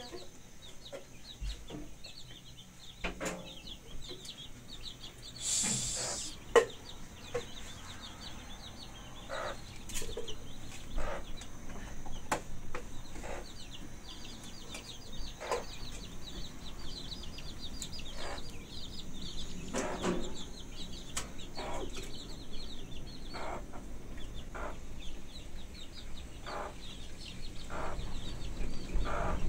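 Birds clucking and chirping, with many quick high chirps throughout. Scattered light knocks and a short burst of hiss about six seconds in.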